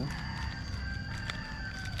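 A rooster crowing faintly, one long drawn-out call, with a few light crinkles and taps from plastic sachets being handled.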